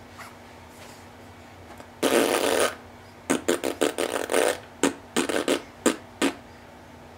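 A six-month-old baby blowing raspberries: one longer spluttering lip buzz about two seconds in, then a quick run of short sputters over the next few seconds.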